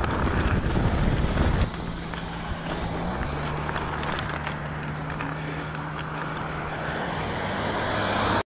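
Wind on the microphone and rough tyre rumble as a mountain bike rides a dirt trail, dropping after about a second and a half to a quieter, steady hum of its tyres rolling on asphalt.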